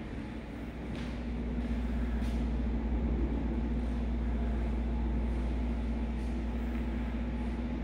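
Steady low rumble of heavy machinery running at a construction site, with a constant droning hum over it.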